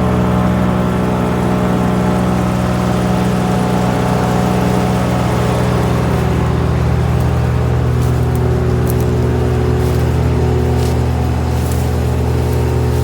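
GreenMech Arborist 150 wood chipper running steadily with its engine at a constant speed, with a few faint ticks in the second half.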